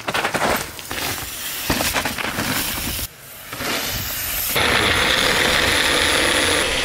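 Mountain bike tyres and drivetrain clattering over a rough dirt trail for the first three seconds. Then a single-serve bullet-style blender runs steadily at full speed, blending a smoothie, from about four and a half seconds in.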